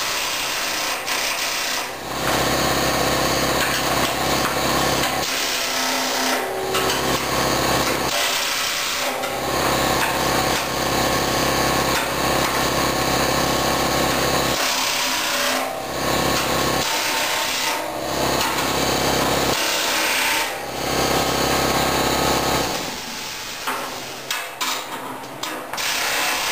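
Pneumatic impact wrench (rattle gun) running lock nuts onto the carriage bolts of a snowplow's steel cutting edge, in bursts of a few seconds with short pauses between nuts. The bursts get shorter and choppier near the end.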